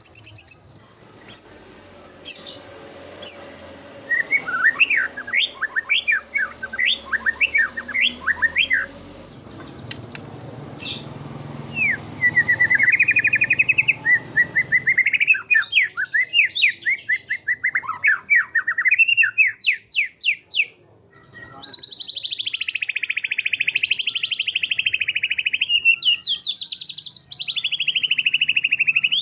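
White-rumped shama (murai batu) singing a long, varied song. It opens with a few sharp high whistles, moves into quick rising and falling phrases and continuous warbling, and after a short pause about three-quarters through breaks into a loud, unbroken rapid trill. This is a 'full isian' song, packed with imitated calls of other birds.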